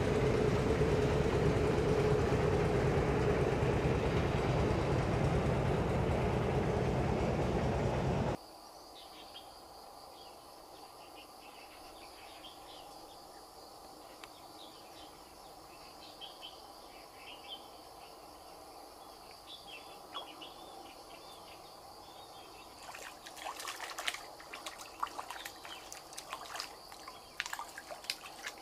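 A motorboat engine runs steadily with a held hum for about eight seconds, then cuts off abruptly. Quiet riverside ambience follows, with scattered bird chirps. Near the end comes a flurry of sharp clicks and splashes as a hooked fish is brought in at the bank.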